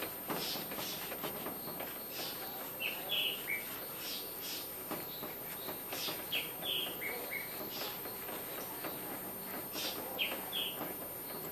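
A coarse fibre scrubber scrubbing the enamel and rusty plate of an old electric hot plate in short strokes. Over it, a bird sings a short phrase of three or four chirps every few seconds.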